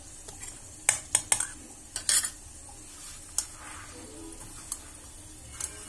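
A steel spoon clinking and scraping against steel bowls in a quick cluster of sharp knocks, then a few scattered clinks, while hands start mixing mashed potato in the bowl.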